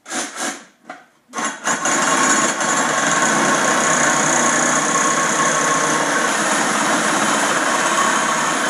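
Reciprocating saw cutting through 1-inch steel tubing: a few brief bursts in the first second, then running steadily as the blade cuts through the tube.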